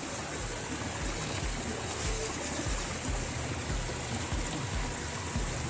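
Shallow stream running steadily over rocks, with an irregular low rumble underneath.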